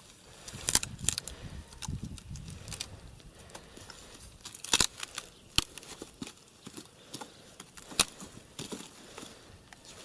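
Dry branches and twigs snapping and rustling as they are pulled and broken out of a brush pile: irregular sharp cracks, a handful of them loud, over a steady scraping rustle.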